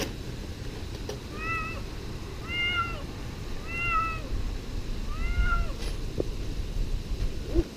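Cat shut in a wire trap cage meowing four times, evenly spaced about a second and a quarter apart, each call rising and then falling in pitch. A low rumble runs underneath.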